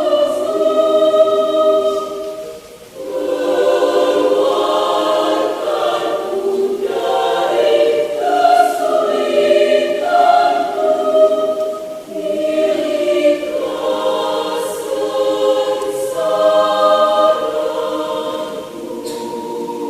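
Mixed adult choir singing in parts, holding sustained chords phrase by phrase, with a short break between phrases about three seconds in.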